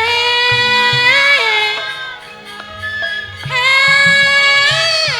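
A woman singing two long, high held notes, each ending in an ornamented turn, over gamelan accompaniment with kendang drum strokes beneath.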